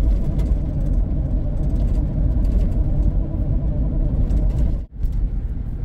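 Pickup truck driving, heard from inside the cab as a steady low rumble of engine and road noise. The sound cuts out for an instant about five seconds in.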